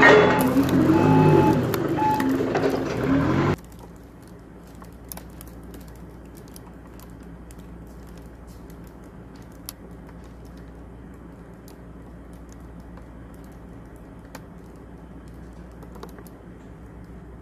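Hyundai HDF20-5S forklift running, with intermittent beeping; the sound cuts off suddenly about three and a half seconds in, leaving a quiet steady low hum with scattered faint clicks.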